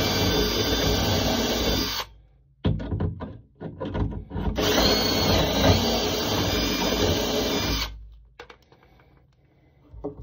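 Kobalt 20V cordless drill with a collared shelf-pin bit, boring holes through a Kreg shelf pin jig into a wooden cabinet side. It runs steadily and stops about 2 seconds in, followed by a few short knocks. It runs again for about three seconds and stops sharply about 8 seconds in, leaving only a few faint clicks.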